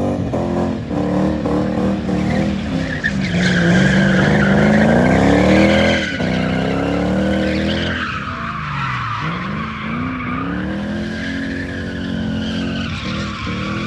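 Drift car engine revving hard up and down as the car slides sideways, with tyres squealing under wheelspin; loudest about halfway through, then the revs dip and climb again.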